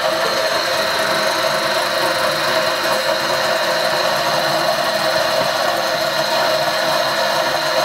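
Kitchen tap running, a steady stream of water pouring into a stainless steel measuring jug as it fills.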